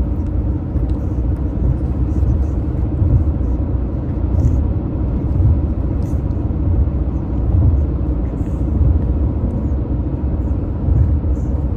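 Car road noise heard inside the cabin while driving: a steady low rumble of tyres and engine.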